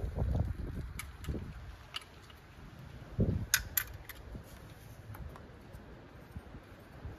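Metal wrenches clinking and being handled: a few sharp clicks, two close together about three and a half seconds in, among dull low handling thuds.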